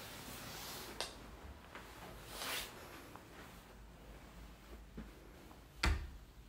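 Quiet room with handling and footstep noise from someone carrying a handheld camera: a soft click about a second in, a brief brushing swish a little later, and a sharper knock with a dull thud near the end.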